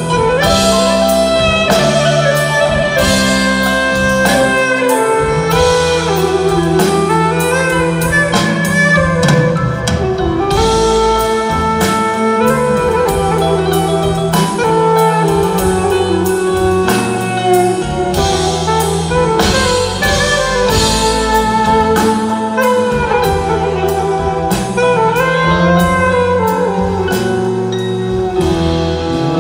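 Instrumental break of a Turkish pop song: a lead melody that glides between notes over bass and a steady drum beat, with no vocal.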